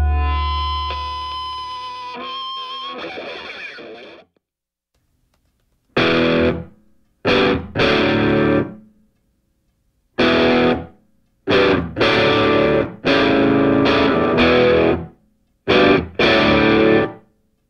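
Background music on distorted electric guitar: a held chord rings and fades out over the first few seconds, then after a short pause come short, abruptly stopped chords in an uneven stop-start rhythm.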